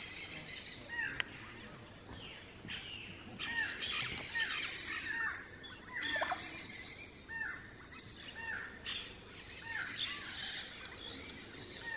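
A nesting colony of icterid birds calling from trees hung with woven pouch nests: many short, arched, downward-curving calls, one or two a second, repeated throughout.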